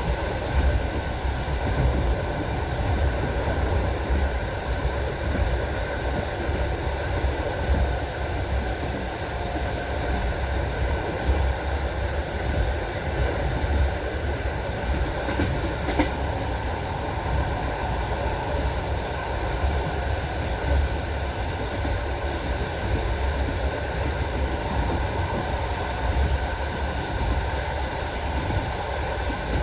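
Railway car wheels knocking over rail joints, clickety-clack, over the steady rumble of a moving train, with one sharper click about halfway through.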